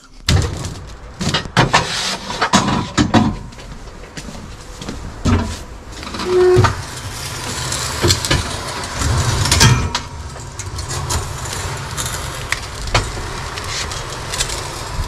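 Forklift loading steel glass racks onto a truck's flatbed: its engine hums steadily under scattered metal clanks and knocks, with a brief beep about halfway through.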